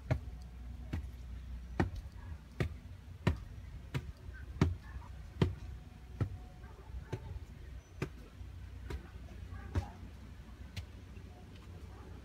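Footsteps climbing a flight of plank stairs: a steady run of heavy footfalls, about one step every 0.8 seconds, with a faint low rumble beneath.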